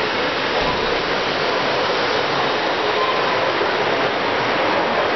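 Steady, even rushing noise of a model train show hall, with a model freight train running on the layout.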